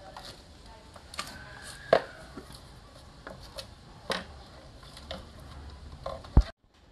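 Scattered clicks and knocks of the plastic parts of a disassembled Chevrolet Captiva side mirror and its folding mechanism being handled and turned over, with a heavier thump near the end.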